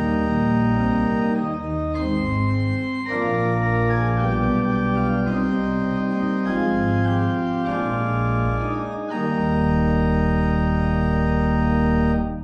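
Organ music playing sustained chords that change every second or so, ending on a long held chord over the last few seconds that dies away right at the end.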